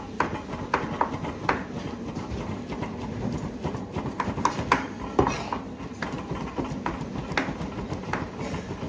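Large curved knife chopping a wet mixture of minced meat, peppers and herbs on a wooden board: repeated uneven knocks of the blade on the board, a few a second, over a steady background hiss.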